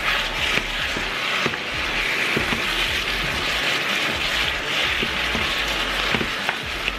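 Chicken pieces sizzling in a frying pan while a wooden spatula stirs them, with scattered light knocks and scrapes of the spatula against the pan.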